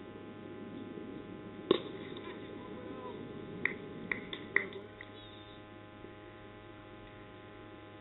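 A single sharp crack of a cricket bat striking the ball, about two seconds in: the shot that hits a no-ball for six. A few smaller sharp sounds follow a couple of seconds later, over a steady electrical hum.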